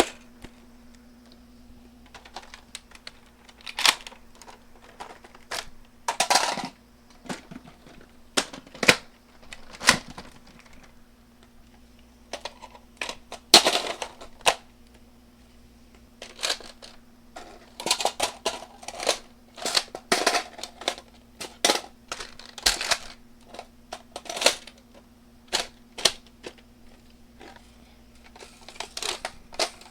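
Irregular plastic clicks and clacks of Nerf blasters and their magazines being handled and reloaded, over a faint steady hum.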